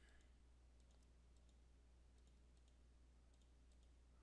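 Near silence: a steady low hum, with a few faint computer-mouse clicks.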